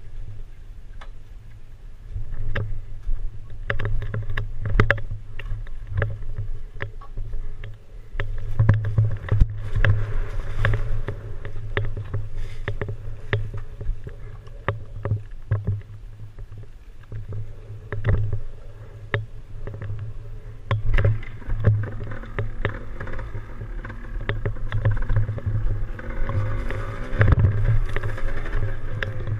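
Yamaha DT175 two-stroke dirt bike being ridden, with wind buffeting the microphone and many sharp knocks from rough ground. The engine note comes up and climbs near the end.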